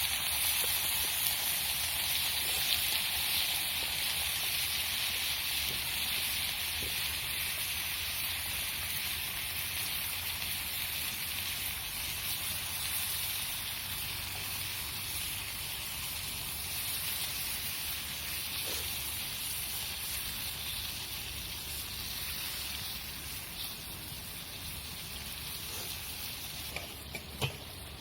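Food sizzling in a pan over a campfire, a steady hiss that slowly grows quieter, with a couple of small clicks near the end.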